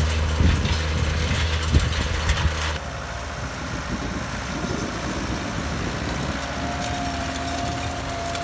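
Tractor engines working in a field: a tractor pulling a cultivator over dry soil, with a few knocks from the implement, then about three seconds in an abrupt change to a second tractor running steadily as it pulls a seed drill.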